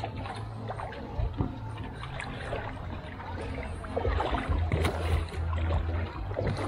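Shallow water sloshing and lapping around a moored speedboat's hull, with small splashes close by and a low rumble underneath that gets louder about four seconds in.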